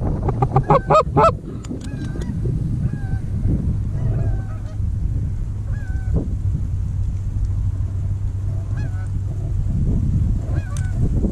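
Goose honks and clucks: a fast, loud run of about six notes in the first second and a half, then scattered fainter honks. Steady wind rumble on the microphone underneath.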